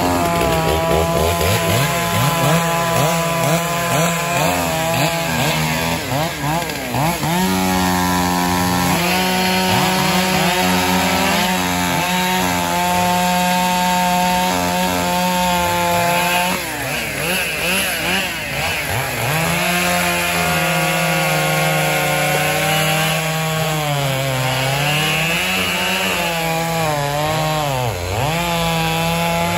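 Powered wood-cutting machinery running hard through brush and timber, its pitch sagging and recovering as it takes and sheds load.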